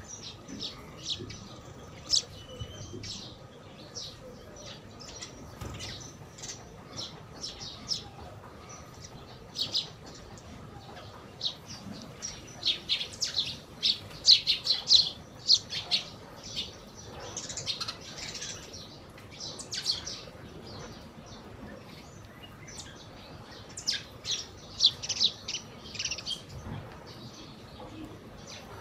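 A small flock of sparrows chirping in many quick, short, high calls, thickest about halfway through and again near the end, with the odd wing flutter as birds hop about.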